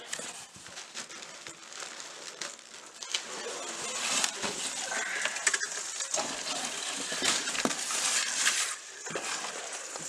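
Plastic wrapping and bubble wrap rustling and crinkling, with cardboard scraping and small knocks, as a heavy wrapped control box is lifted out of a cardboard shipping box. It grows louder about three seconds in and eases off near the end.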